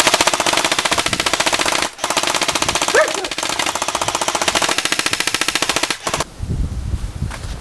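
Rapid automatic gunfire in two long bursts, a brief break about two seconds in, stopping about six seconds in.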